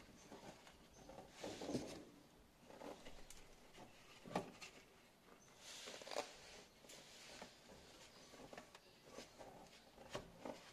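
Faint handling noise as a rubber exhaust hanger is worked onto its detergent-coated hanger rod: short rubbing sounds and scattered small clicks, the sharpest about four seconds in.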